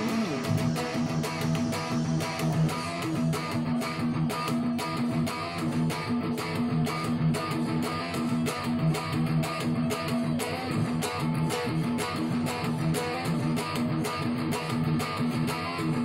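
Electric guitar playing a fast picked riff, hammering repeated low notes in a steady rhythm.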